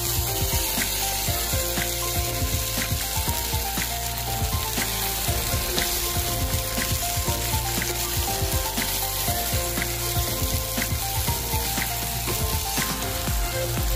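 Marinated chicken wings sizzling and frying in oil with onion and garlic in a nonstick pan, a steady hiss with small pops and the scrape of a wooden spatula turning the pieces. Light background music plays underneath.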